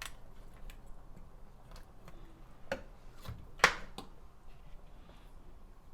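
Kitchen utensils knocking and clicking against a cooking pot: a few scattered light clicks and two clearer knocks just past the middle, the second the loudest.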